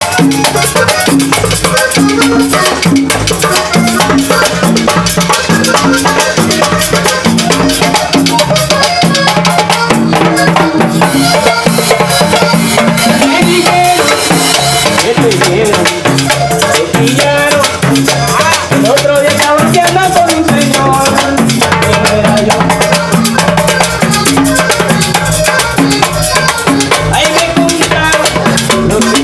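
Vallenato band music with no singing yet: busy, steady drum and shaker-style rattle percussion under a melody line.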